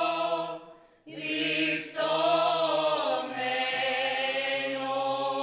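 Arbëreshë Byzantine-rite liturgical chant: voices sing a melody over a steady held drone (ison). The singing fades out briefly about a second in, resumes, and settles on a long held final note.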